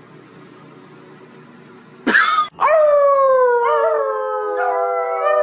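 A dog gives a short yelp about two seconds in, then goes into one long howl that falls slowly in pitch.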